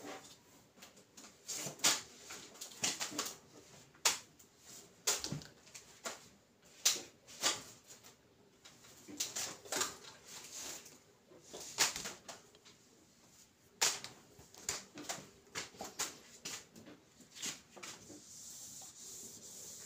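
Irregular sharp clicks and knocks, scattered a few seconds apart. Near the end, the steady rubbing hiss of a felt eraser wiping a whiteboard.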